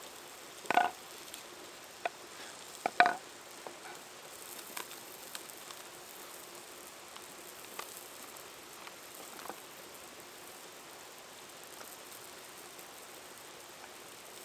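Plastic pouch of cooked rice torn open with two short, loud rips, then soft scattered clicks and taps as the rice is squeezed and spooned out, over a faint steady hiss.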